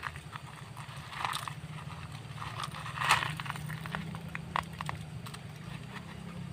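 Plastic toy vehicles being handled and dug out, giving scattered small clicks and soft rustling scrapes over a faint steady low hum.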